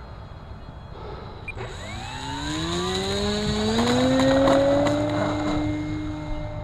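Electric motor and propeller of an E-Flite Carbon-Z Cessna 150 RC plane spooling up for takeoff, its whine rising in pitch as the throttle advances and then holding steady. It is loudest about four seconds in and fades slightly as the plane moves away.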